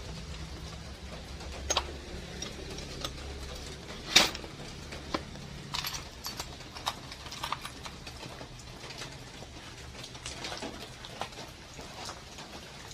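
Scattered clicks and knocks of tools and small metal parts being handled, with one sharper knock about four seconds in.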